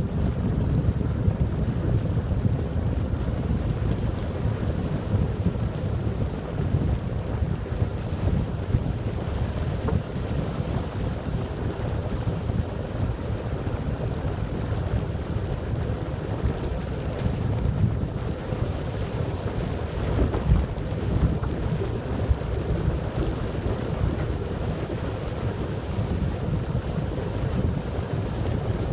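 Wind noise on the microphone and tyre rumble from a faired recumbent bicycle (velomobile) rolling steadily at about 35 km/h on rough asphalt, a steady low rumble throughout.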